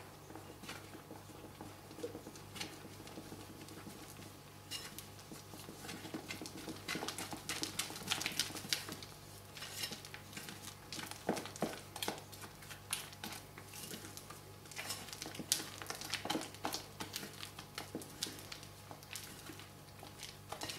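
A spatula stirring a thick paste of white glue and cornstarch in a glass bowl: irregular soft scrapes and clicks against the glass, getting busier about five seconds in.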